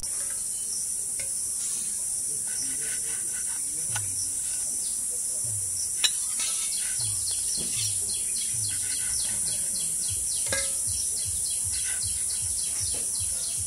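Kitchen knife cutting the crusts off a slice of white bread on a wooden chopping board: soft cutting strokes, with one sharp click about six seconds in. A steady high-pitched hiss runs underneath.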